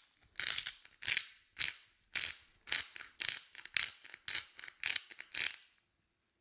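A hand-twisted salt or pepper mill grinding over raw steaks: about a dozen short ratcheting crunches, roughly two a second, that stop shortly before the end.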